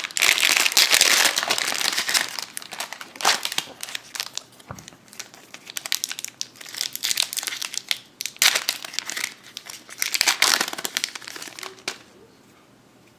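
Foil wrapper of a Pokémon TCG booster pack being torn open and crinkled. The crinkling is steady for the first two seconds or so, then comes in scattered crackles, and it dies away near the end.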